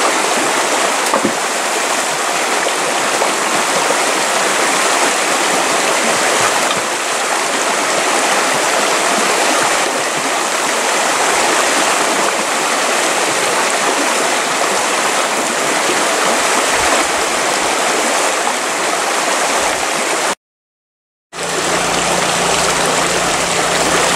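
Shallow rocky mountain stream rushing and gurgling over stones, a steady, loud wash of water, broken by about a second of silence near the end.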